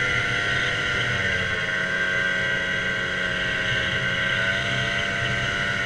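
Snowmobile engine running steadily under way, with the hiss of track and wind over it. Its pitch dips slightly about a second and a half in and climbs back near the end.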